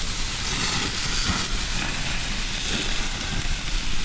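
Raw chicken thighs sizzling on the grates of a hot gas grill, a steady hiss with a low rumble underneath.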